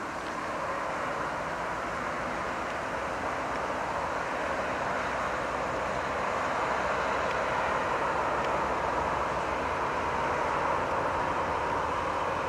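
Distant vehicle noise: a steady rush with a low hum beneath, growing slowly louder.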